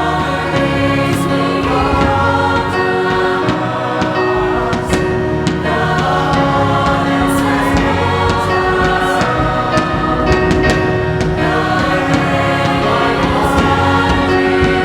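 Youth choir singing held chords in several parts with instrumental accompaniment, the chords shifting every second or two.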